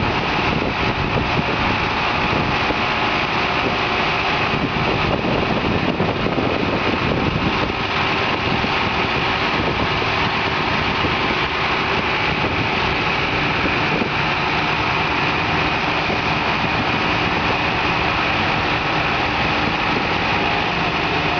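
Large industrial forklift's engine running steadily while it carries a heavy machine and sets it onto a flatbed trailer.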